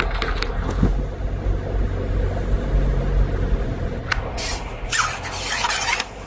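Steady low rumble, with a stretch of dry rustling and handling noise from about four seconds in as a small crucian carp is landed.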